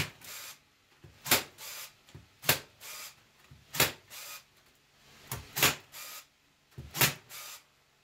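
Staple gun driving staples through wire mesh into a wooden frame: about six sharp snaps a second or so apart, each with a softer, shorter clack close beside it.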